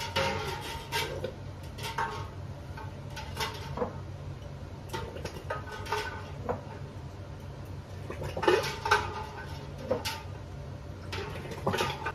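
Glass pint canning jars clinking against one another and the metal rack as they are set down into a half-filled water bath canner, with water sloshing. The clinks come irregularly and ring briefly, the loudest about eight and a half seconds in, over a steady low hum.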